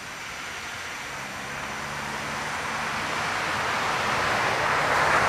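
Jet engine noise from a Boeing 747-400F on its landing rollout, a broad rush with a faint low hum that grows steadily louder.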